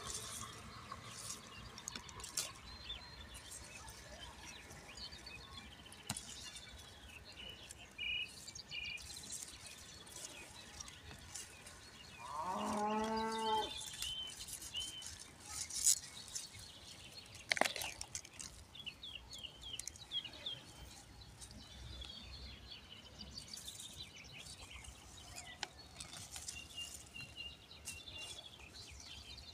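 A cow moos once, about twelve seconds in, for over a second. Around it, leafy seedlings rustle with a few sharp clicks as they are handled, and small birds chirp now and then.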